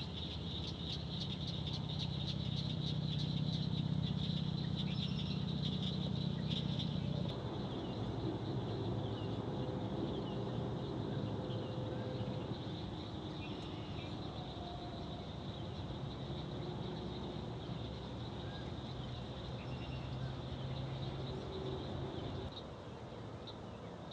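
Swamp ambience: frogs and insects trilling in a fast pulsing chorus, loudest for the first seven seconds, with scattered faint bird chirps over a low steady hum.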